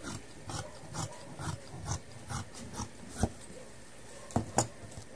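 Fabric shears cutting through cotton cloth, a run of snips about two a second, then three sharp clicks in the last two seconds.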